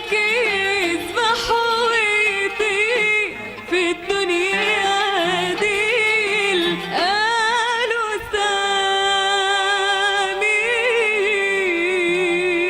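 Woman singing a long, wavering, wordless melisma over instrumental accompaniment, in Arabic classical style.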